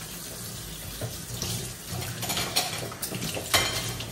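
Kitchen tap running into a stainless steel sink while a container is scrubbed with a sponge and rinsed under the stream. A few sharp knocks of dishware come through, the loudest about three and a half seconds in.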